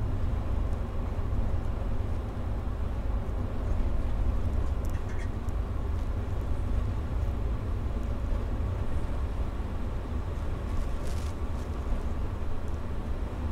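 Steady low rumble of a moving coach bus's engine and tyres, heard from inside the cabin behind the driver.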